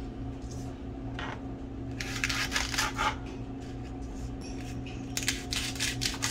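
Clusters of light clicking and rustling, like small objects being handled, in three bursts over a steady low hum.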